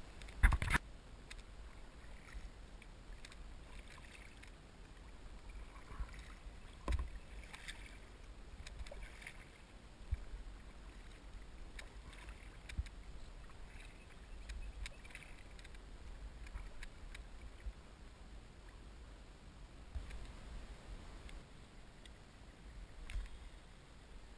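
Sit-on-top kayak on calm water: quiet paddling and water sounds with scattered hollow knocks on the plastic hull, the loudest about half a second in.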